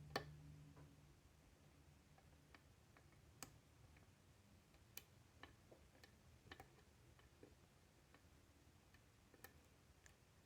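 Faint clicks of a lock pick and tension wrench working the pin stack of a 5-pin challenge lock: one sharper click right at the start, then scattered light clicks every second or so.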